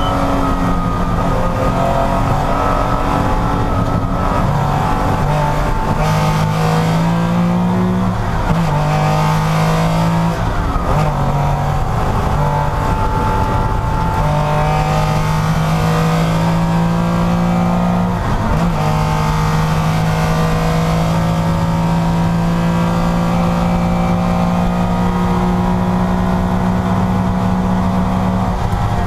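Porsche race car engine at racing speed, its pitch climbing and then dropping sharply at each gear change, about five times, before holding nearly steady for the last ten seconds.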